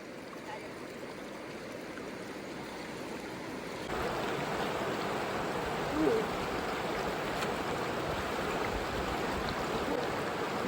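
River water flowing steadily as a rushing wash, louder from about four seconds in.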